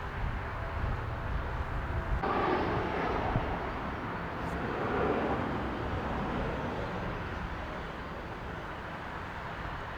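Jet airliner engine noise: a steady rumble that swells about two seconds in, peaks around five seconds and then eases off, with gusty wind buffeting the microphone.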